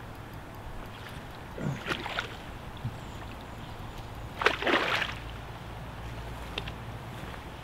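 Water splashing in two short bouts, about two seconds in and again around four and a half seconds, as a hooked zander is played and brought in at the river's surface.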